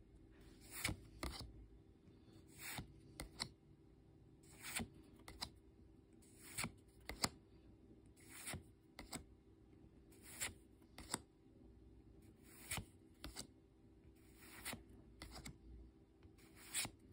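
Pokémon trading cards slid one by one off a small hand-held stack, each card a brief, faint swish of card rubbing on card, irregularly about once a second.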